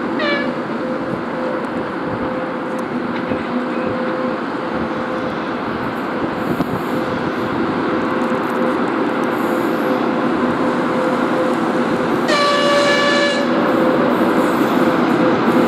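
VL80K electric locomotive hauling a freight train past, its steady running noise and hum slowly growing louder as it comes closer. One short horn blast of about a second sounds near the end.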